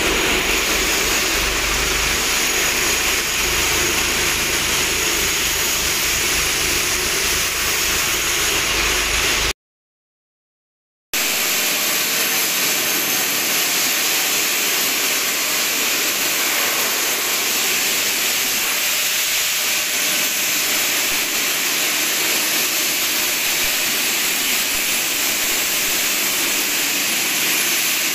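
Steady, loud rushing hiss of industrial air equipment in a steel fabrication shed, with a low rumble underneath in the first part. The sound cuts out for about a second and a half near the middle and comes back as the hiss alone.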